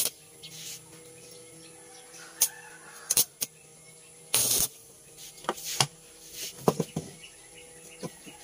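Stick (arc) welding rod tacking rusty steel car brake shoes together: a series of short, sharp crackling bursts as the arc is struck, the longest about halfway through, with clinks of the steel parts being handled.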